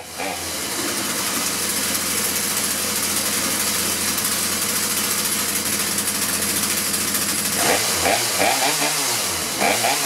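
Poulan Pro 40cc two-stroke chainsaw engine running steadily, then revved up and down a few times near the end as the throttle is worked. It is now running properly, with its fuel lines reconnected the right way round.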